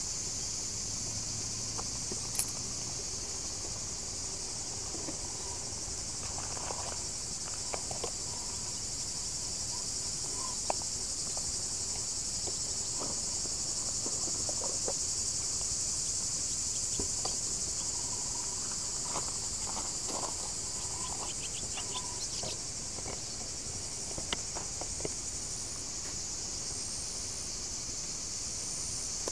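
A steady, high-pitched chorus of insects that keeps up throughout, with a few faint scattered clicks.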